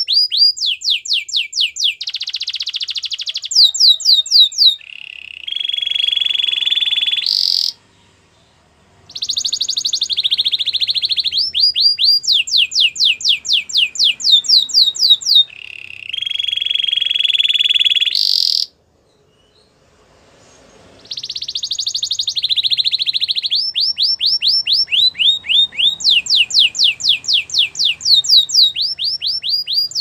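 Canary singing in long bouts: fast trills of repeated falling notes alternating with buzzy, rolling held tones, broken by two short pauses, one about eight seconds in and one around twenty seconds.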